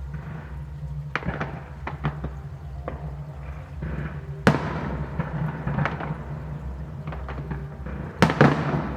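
Fireworks going off: scattered sharp cracks and pops, with two much louder bangs, one about halfway through and one near the end, each trailing off briefly.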